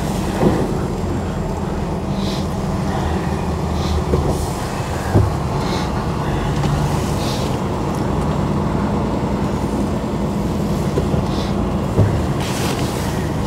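Lorry's diesel engine running low inside the cab while the truck is manoeuvred slowly onto a loading bay. Short hissy puffs come every couple of seconds, with a few light knocks.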